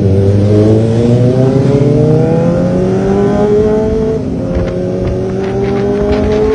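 Kawasaki ZX-25R's 250 cc inline-four through a Leo Vince LV10 aftermarket exhaust, accelerating hard: the engine note climbs steadily, dips at an upshift about four seconds in, then climbs again.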